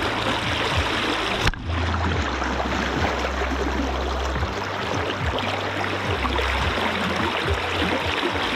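Fast Kenai River current rushing and gurgling steadily around a wading angler close to the microphone, with low rumbling from the water buffeting the mic and a brief drop about one and a half seconds in.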